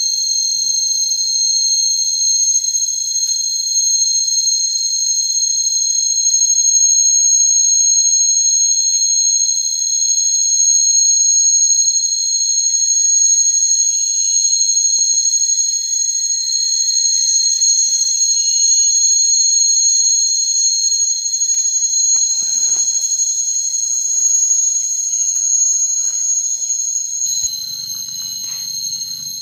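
High-pitched insect chorus, a steady shrill drone on two pitches, with a fainter pulsing trill in the first half. A few faint knocks come near the end, and a low rumble starts shortly before it ends.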